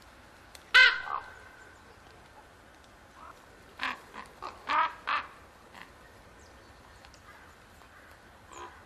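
Common ravens calling: one loud croaking call about a second in, then a quick run of four or five shorter croaks around the middle.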